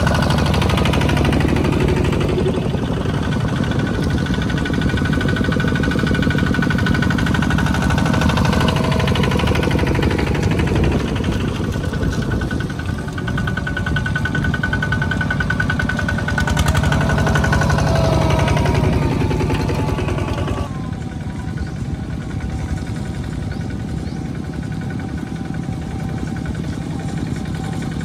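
Single-cylinder diesel engines of two-wheel walking tractors chugging under load as they haul trailers of rice sacks through deep mud. The sound is a rapid, steady knocking. About two-thirds of the way through it drops a little in level and changes.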